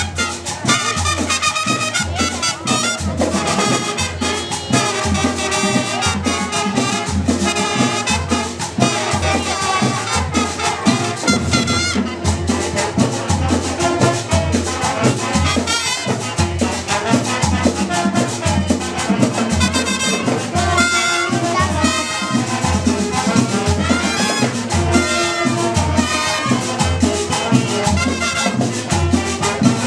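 School marching band playing: trumpets and trombones carrying a tune over a steady bass drum beat.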